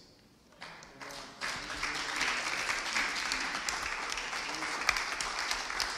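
Audience applause: a few scattered claps at first, then about a second and a half in the whole room joins in and keeps clapping steadily.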